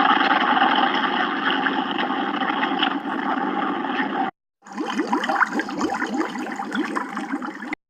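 Boat sound effect: splashing, rushing water with boat noise, in two stretches with a brief break a little past four seconds; the second stretch is full of quick rising gurgles.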